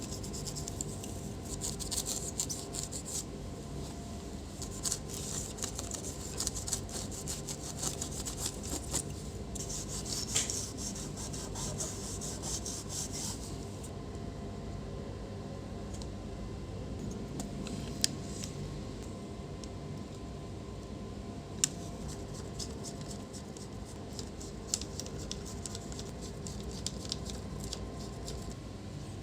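Rapid scraping and rubbing strokes on the laptop's internal parts during cleaning. They come thick and fast for about the first dozen seconds, then thin out, with a few sharp clicks and some more scraping near the end.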